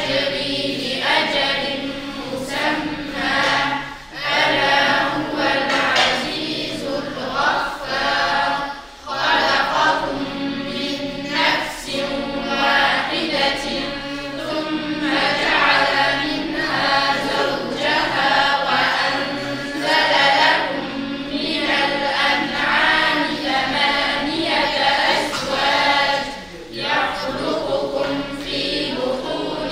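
A group of children and teenagers reciting the Quran aloud in unison in Arabic, in a drawn-out chanted style, with a few brief pauses between verses.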